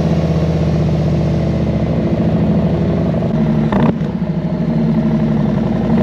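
2021 Harley-Davidson Road Glide Special's Milwaukee-Eight 114 V-twin idling after start-up, a steady rhythmic rumble, with one brief click about four seconds in.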